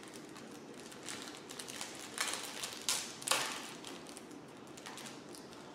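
Tape-wrapped packaging being handled and pulled open, with light crinkling and small ticks and three short rasping rips about two to three and a half seconds in.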